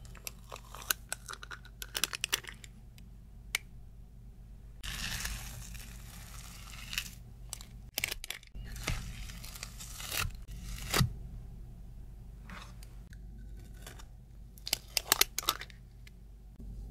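Metal ice-cream scoop scraping and crunching through icy frozen sorbet in a plastic tub, with two longer rasping scrapes in the middle. Sharp clicks and taps of the metal scoop come in clusters near the start and again near the end.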